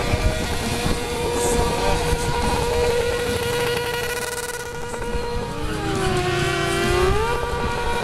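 Sportbike engine held at high revs during a rear-tyre burnout, its note steady and high. A little past halfway the revs sag, then climb back up near the end.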